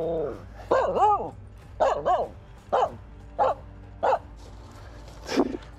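Finnish Spitz barking: a string of about six short barks, each rising and falling in pitch, spaced well under a second apart.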